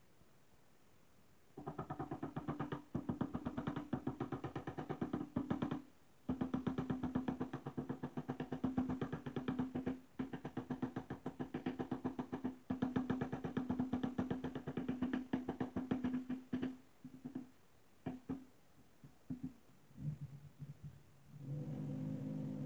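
Background music: a fast, pulsing pattern over a steady low note starts about a second and a half in, breaks off briefly now and then, and thins out before a held chord comes in near the end.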